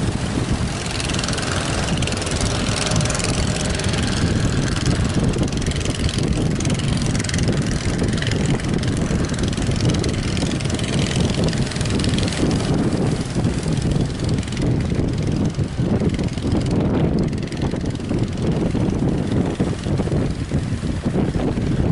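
Strong wind rumbling and buffeting on the microphone over a steady wash of sea waves.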